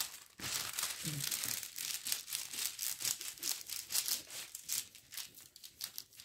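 Thin plastic wrapping of a diamond painting kit crinkling as it is handled and smoothed back into place, in quick irregular crackles that thin out near the end.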